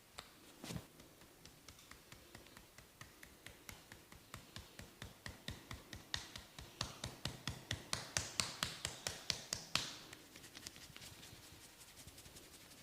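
A single knock, then rhythmic tapping of a barber's massage strokes that speeds up and grows louder before stopping abruptly near the end.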